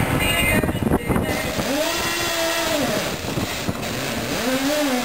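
Drilling-rig machinery running loudly and steadily, with a hydraulic power tong on the drill pipe spinning twice, its motor's pitch rising and then falling each time.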